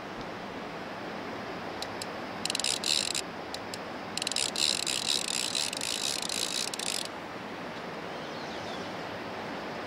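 Spinning reel being cranked, giving a rapid ratcheting click: a short burst, then after about a second a longer one lasting about three seconds.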